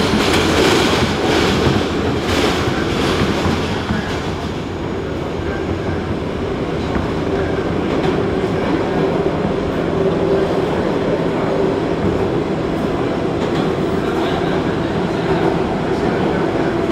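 New York City 7 express subway train running at speed through a tunnel, heard from inside the car: a steady rumble of wheels on rails with a droning hum. A few sharper clacks come in the first three seconds.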